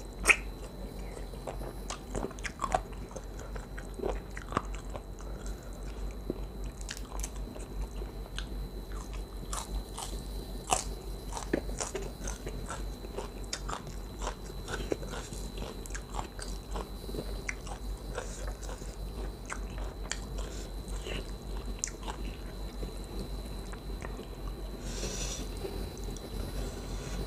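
Close-miked eating sounds: chewing khanom jeen noodles in chicken curry with chicken feet and blood cubes, with irregular wet smacks, clicks and small crunches.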